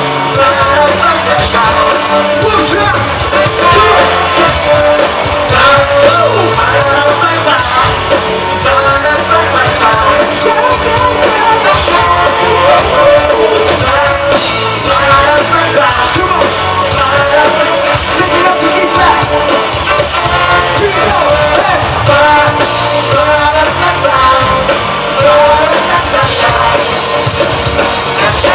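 Live funk-rock band playing loudly, with drums and bass driving under electric guitars, heard from among the audience.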